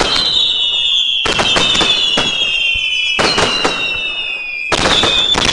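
Aerial fireworks bursting in quick clusters of cracks and bangs, about four clusters, with high whistling tones that slowly fall in pitch between them.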